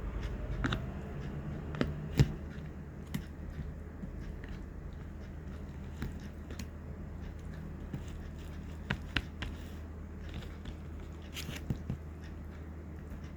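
Plastic food container and packaging being handled: scattered sharp clicks and crackles, the loudest about two seconds in, over a steady low hum.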